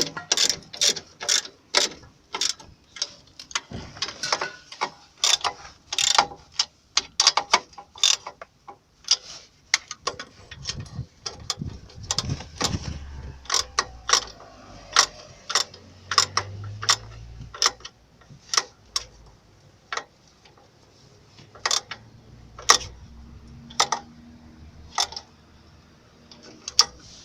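Ratchet wrench clicking in quick runs with short pauses as the bolts of a new exhaust pipe joint are run in and tightened.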